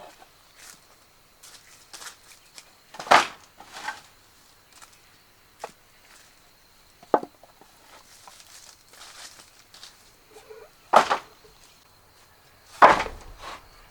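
Sparse knocks and chops on wood: four louder strikes a few seconds apart, with faint clicks and rustles between.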